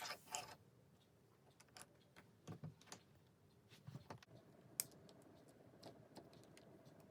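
Faint, scattered clicks and taps of plastic LEGO pieces being handled and pressed into place, with a few sharper clicks around the middle.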